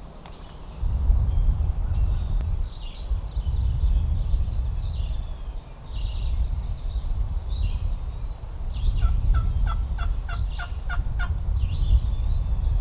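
Wild turkey calling: a run of about eight evenly spaced notes in the second half, amid chirping songbirds and a steady low rumble.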